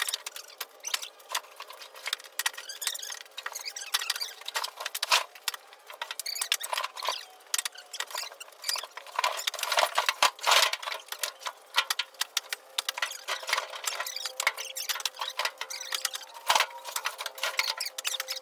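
Split firewood being handled and stacked: pieces of wood knocking and clattering against each other in quick, irregular hits, some louder than others.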